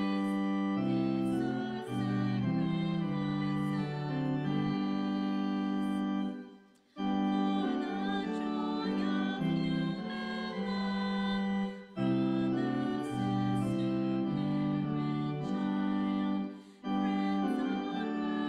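Church organ playing a hymn tune in held chords, phrase by phrase, with short breaks between phrases about 7, 12 and 17 seconds in.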